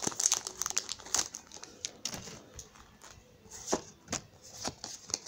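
Foil wrapper of a Pokémon card booster pack crinkling as it is handled. It gives way to scattered light clicks and taps of trading cards being handled.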